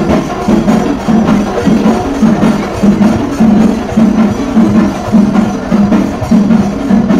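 Procession band music led by drums and percussion, with sharp strikes over a quick, steady, repeating beat.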